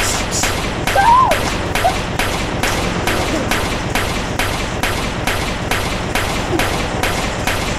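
Battle gunfire sound effect: a steady loud roar of rapid shots, with a stronger crack about twice a second. A short voice-like cry rises and falls about a second in.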